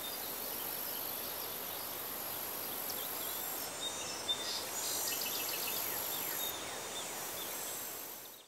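Outdoor countryside ambience: small birds chirping in quick falling notes over a steady hiss with a high, thin band of sound above it. It fades out at the very end.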